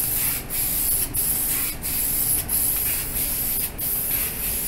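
Aerosol spray can hissing as a coat is sprayed onto a car bumper, in short sprays broken by brief gaps roughly once or twice a second as the nozzle is released between passes.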